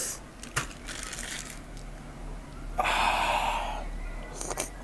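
A person slurping and licking curry sauce off a bite of food at the lips. There is a loud, airy slurp about three seconds in, lasting about a second, followed by a few wet mouth clicks. A single sharp click comes about half a second in.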